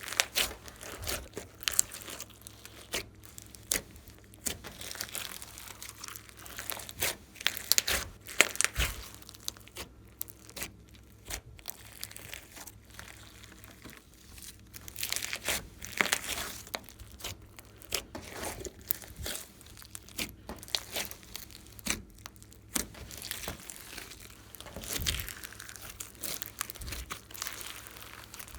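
Glossy slime being kneaded and stretched by hand, making irregular sticky crackles, pops and clicks.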